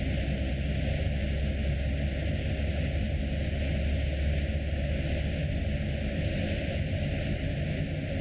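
A car being driven at a steady pace: an even low rumble of engine and tyres on the road, with a steady hiss over it.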